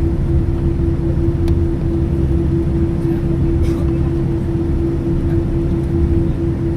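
Boeing 787 airliner noise: a steady low rumble with a constant mid-pitched hum held at one pitch.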